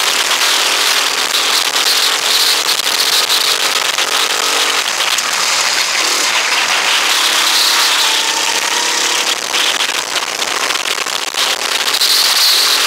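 Rental go-kart's small engine running hard, heard from the driver's seat under heavy crackling wind noise on the microphone. The engine note drops about five seconds in, again a second later and near the end, then climbs back each time.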